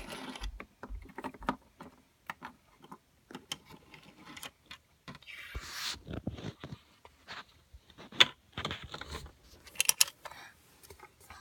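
Handling noise of small plastic toy figures and the phone filming them: scattered clicks, taps and scrapes, with a brief rustling swell about six seconds in.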